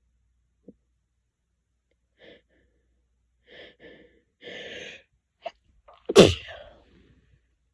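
A person's gasping breaths building up over a few seconds, then one loud sneeze with a falling voice about six seconds in.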